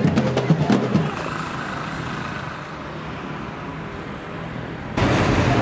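Drum beats that stop about a second in, followed by steady road-vehicle noise with a low hum; a louder rush of noise cuts in about five seconds in.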